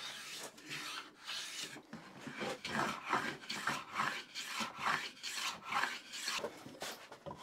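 Stanley Bailey hand plane cutting a fine chamfer along the edge of a wooden board, in quick repeated strokes of about two a second.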